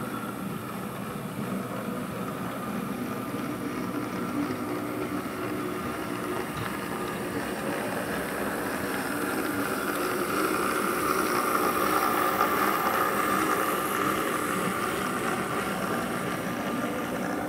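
Model diesel shunter and its train running along the track toward and past close by: a steady motor whirr and wheel rumble on the rails that grows louder as it nears, loudest about two-thirds of the way through.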